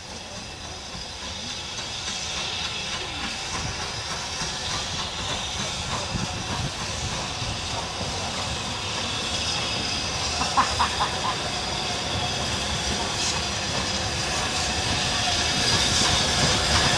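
BR Standard Class 5 4-6-0 steam locomotive approaching slowly with its train, steam hissing steadily and growing louder as it nears. A brief run of short sharp sounds comes about ten seconds in.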